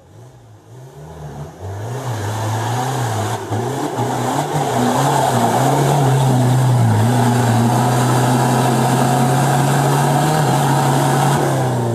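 Off-road 4x4's engine revving up and held at high revs for several seconds as it strains on a difficult climb, then easing off near the end.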